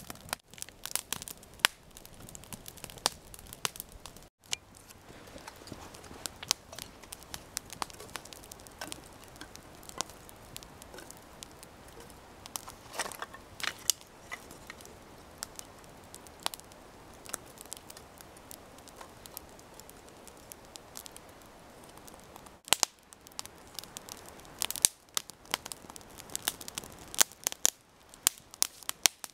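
Small campfire of split fatwood kindling crackling, with irregular sharp snaps from the burning wood. Partway through, split sticks knock together as they are laid on the fire.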